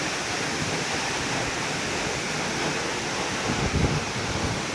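Waterfall rushing as a steady, even roar of falling water, with a brief low rumble of wind on the microphone a little before the end.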